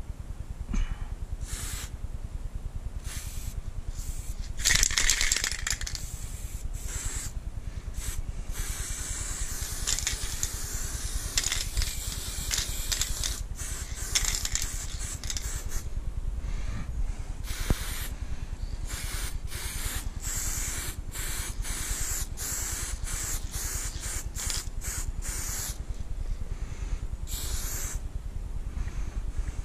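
Aerosol spray-paint can hissing in many separate bursts, some well under a second and others a few seconds long, with a steady low rumble underneath.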